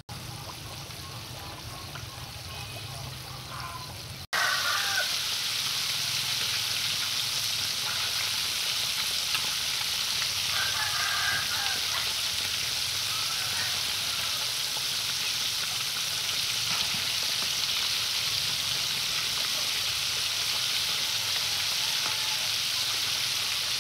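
Battered chicken pieces deep-frying in a wok of hot oil: a steady, loud sizzle that starts abruptly about four seconds in.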